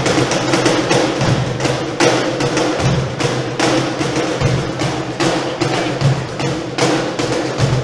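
Cajones played together in a fast, dense rhythm: sharp slaps on the wooden front panels mixed with deep bass strokes.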